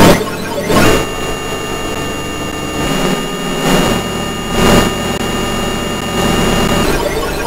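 Synthesized electronic drone from a Max/MSP multichannel patch of sine and sawtooth oscillators: several held tones, including thin high steady ones, over lower notes that shift every second or so as new random values arrive. Short noisy swells rise near the start, about a second in, and near the five-second mark.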